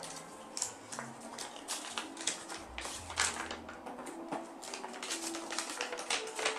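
A paper instruction leaflet being unfolded and handled, rustling and crinkling in a string of irregular crackles.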